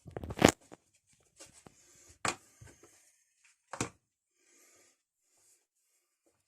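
Handling a penetrating-oil aerosol can whose spray head has come off, while working at a seized adjustable spanner: three sharp clicks or knocks about two seconds apart, with faint short hisses and small ticks between them.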